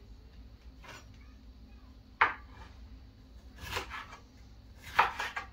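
Kitchen knife cutting bell pepper on a wooden cutting board: a few separate sharp knocks of the blade hitting the board, the loudest about two seconds in and again near the end.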